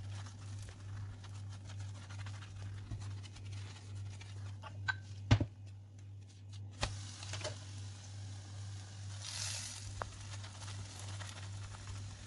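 Buttered roti cooking in a hot nonstick frying pan: a faint crackling sizzle that swells into a brief hiss near ten seconds in, over a steady low hum. A sharp knock comes a little past five seconds in, with a softer one shortly after.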